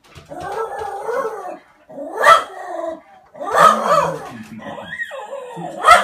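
A canine howling and yipping: several short calls that rise and fall in pitch, broken by sharp, loud yelps about two seconds in, near four seconds and at the end.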